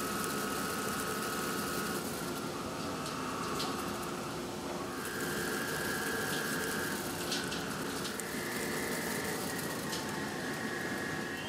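CNC lathe turning a metal shaft with a cutting insert: a steady machine hum with a whine that changes pitch in steps a few times as the cut moves along, and a few faint clicks.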